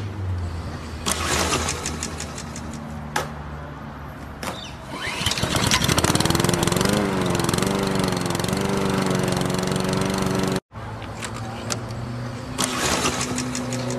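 Lawn mower engine being pull-started: a few sharp pulls, then about five seconds in it catches, rising in pitch, and runs with its pitch wobbling up and down. It cuts off abruptly near eleven seconds, and the pull-starting begins again.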